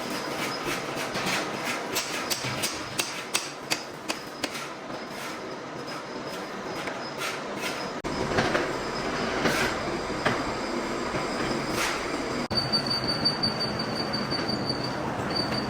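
Metal machining in a workshop: rapid metallic clicks and clanks over a steady machine noise. About twelve seconds in, a high, steady squealing whine of metal on metal sets in, breaking off briefly near the end.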